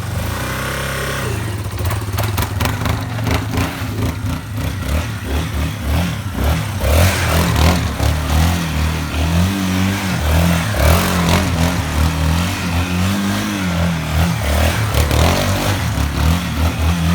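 Yamaha Raptor 350 quad's single-cylinder four-stroke engine running and being revved up and down several times, its pitch rising and falling.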